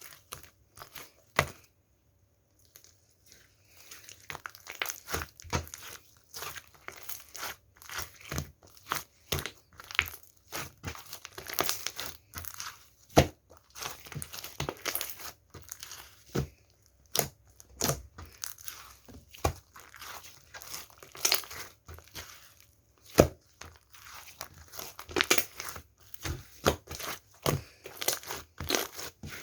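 Purple pearl slime being squished, stretched and folded by hand with angel clay worked into it: irregular sticky pops, clicks and crinkly tearing noises, pausing briefly about two seconds in.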